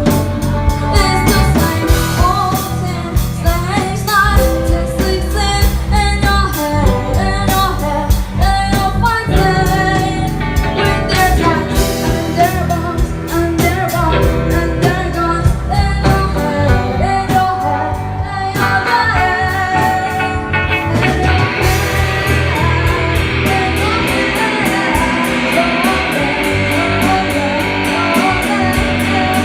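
Live rock band playing with a sung lead vocal, guitar and drums, run through a PA during a sound check. About twenty seconds in, the band gets fuller and brighter.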